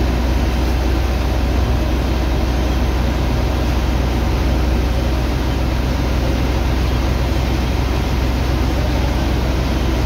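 Heavy engine of a sand-unloading dredger pump running steadily with a deep, constant hum, under the rushing hiss of a high-pressure water jet washing sand into slurry.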